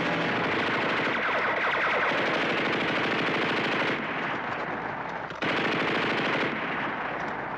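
Sustained rapid automatic gunfire, machine-gun and rifle fire in a firefight. It eases about four seconds in, comes back loud a moment later, then thins out near the end.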